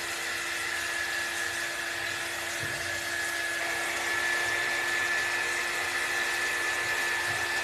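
Small corded handheld heat tool running steadily, its fan motor giving a constant high whine, as it dries freshly applied ink on a cloth towel. It gets a little louder about halfway through.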